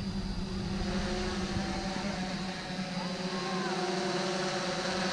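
Small camera drone's propellers buzzing steadily in flight, one even pitch with overtones.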